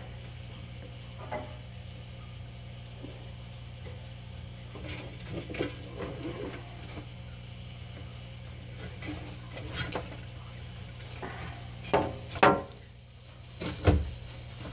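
Yellow monitor lizard (Varanus melinus) feeding and clambering in its enclosure: scattered clicks and knocks of claws, jaws and hard surfaces, with a few louder knocks near the end, over a steady low hum.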